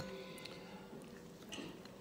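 Quiet cutlery sounds: the ring of a spoon clinking against a plate dies away in the first moments, then a few faint light taps of cutlery.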